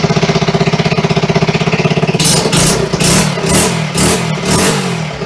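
1974 Honda XR75's small single-cylinder four-stroke engine idling with a rapid even beat, then given five or six quick blips of the throttle about two seconds in before dropping back to idle. The bike has just started and is running after a full restoration.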